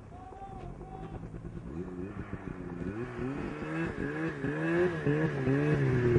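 Snowmobile engine revving, its pitch rising and falling again and again as the throttle is worked, growing steadily louder as it comes closer.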